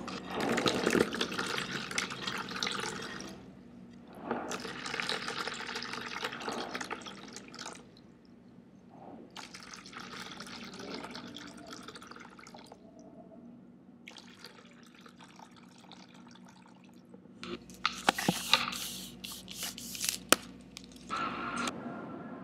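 Wet, dripping and trickling sound effects come in several bursts separated by short pauses. A cluster of sharp clicks follows near the end.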